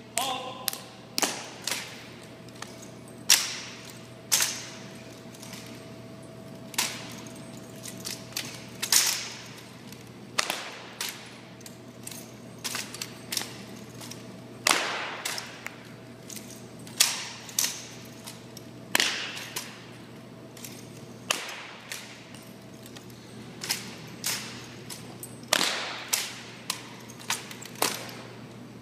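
Drill rifles slapped, spun and caught, with boots stamping on a hard floor, during a silent rifle drill: dozens of sharp cracks and clacks at uneven spacing, each with a short echo from the hard-walled hall.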